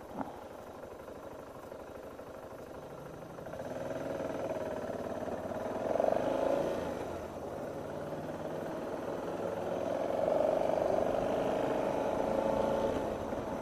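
Vehicle engine and road noise heard while driving, with a short click just after the start. The engine sound grows louder from about three and a half seconds in and swells twice, as the vehicle picks up speed.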